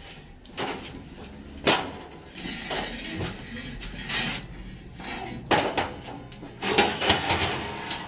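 A few separate knocks and clatters, a second or more apart, like tools and metal being handled on a wooden floor, with a faint low hum between them.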